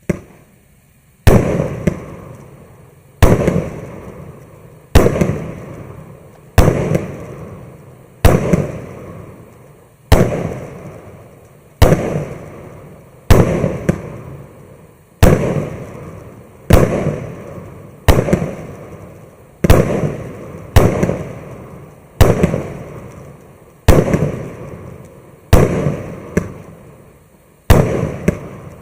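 Maxsem Scintillant MC116 firework battery firing shot after shot: a sharp bang about every one and a half to two seconds, each trailing off over a second or so before the next.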